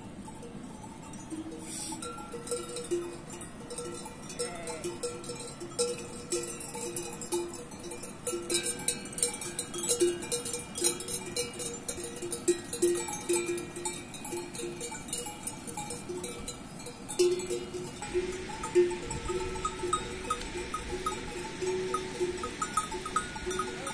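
Livestock bells on a herd of goats and sheep clanking and ringing irregularly as the animals move about.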